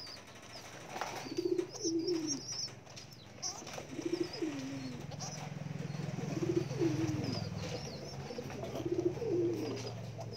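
Domestic pigeons cooing: a rolling coo with a falling tail repeats about every two seconds. Faint high chirps sound over it, and a low steady hum comes in about halfway through.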